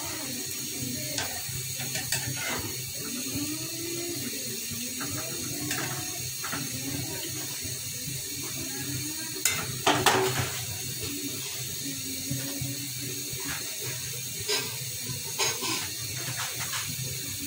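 Vegetable bhaji cooking in a karai with a steady watery hiss, while a metal spatula scrapes and clinks against the pan as it is stirred. The clinks are loudest about ten seconds in.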